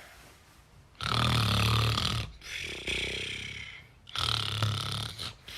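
A grandfather snoring: quiet for about a second, then a long low buzzing snore, a softer breath after it, and a second snore near the end.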